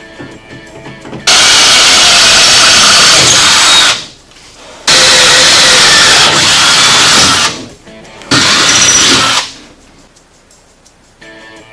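Power drill running in three bursts of a few seconds each, the last one shorter, with faint background music in the gaps between them.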